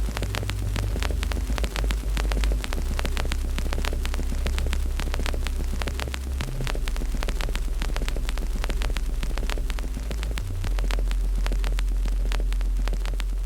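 Wood fire crackling, with many small sharp pops in quick irregular succession over a steady low rumble.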